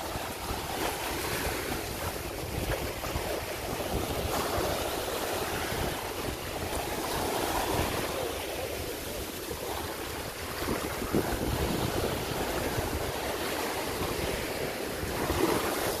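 Rough sea surf breaking and washing up a sandy beach, with wind rumbling on the microphone.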